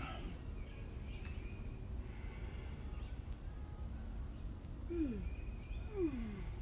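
Outdoor background: a steady low rumble with faint bird chirps, and two short sounds falling in pitch about five and six seconds in.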